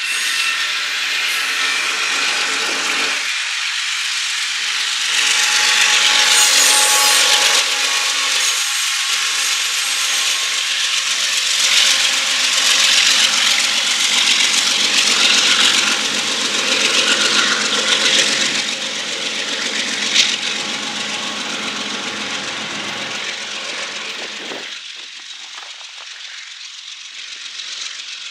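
Double-stack container cars rolling past close by: a steady, loud hiss and grind of steel wheels on rail with faint squealing tones, getting quieter near the end.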